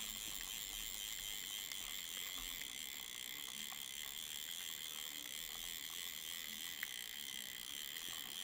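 Quiet room tone: a steady faint hiss with a thin high whine, and a couple of faint ticks.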